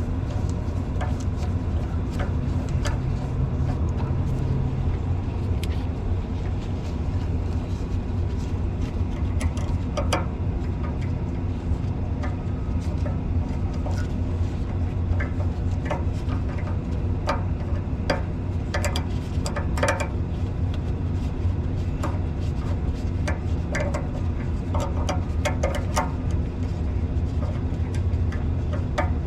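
A steady low rumble runs throughout, with scattered light metallic clicks and clinks of hand tools and clips being worked, busiest in the second half.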